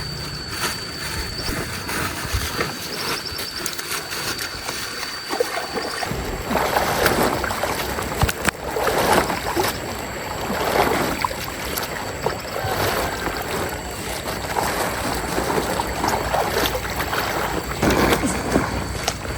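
Water sloshing and splashing in repeated surges, one every second or two, starting about six seconds in, over a steady background rush of stream water.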